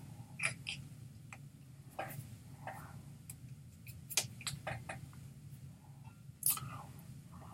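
Scattered, irregular soft clicks and taps made by a person signing in American Sign Language, over a steady low hum.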